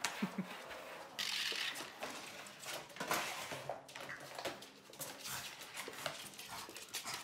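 Dogs licking and eating from plastic bowls on a hard floor, with repeated short clicks, knocks and scrapes of the bowls and a plastic container moving on the floor.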